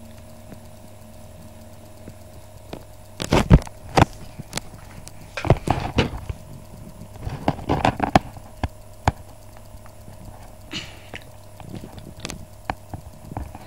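Irregular knocks, clicks and rustles, heaviest in clusters in the first half, over a steady low electrical hum.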